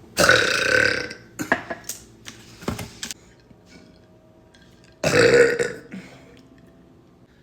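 A woman letting out two long, loud burps about five seconds apart, with a few short, sharp sounds in between.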